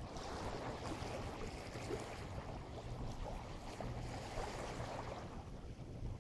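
Steady rushing of wind and small waves at the water's edge, with a low rumble of wind on the microphone.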